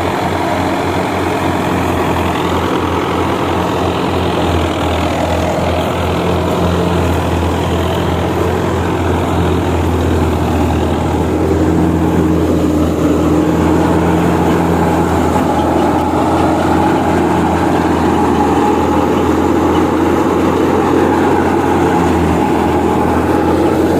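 Belarus 510 tractor's diesel engine running steadily, getting a little louder about halfway through.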